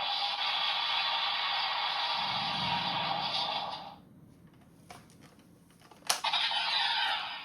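Electronic sound effects from a Bandai PDX Laser Rise Riser toy's small speaker: a long hissing burst that stops about four seconds in, then a sharp click and another loud hissing burst near the end.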